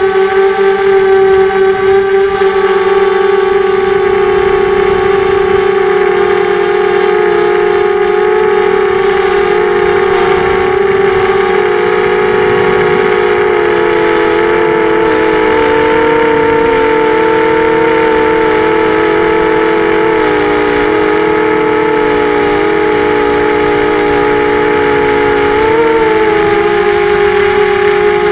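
FPV quadcopter's electric motors and propellers whining steadily, heard close up from a camera on the drone. About halfway through, the single pitch splits into several close tones that waver as the motors change speed, then merges again near the end.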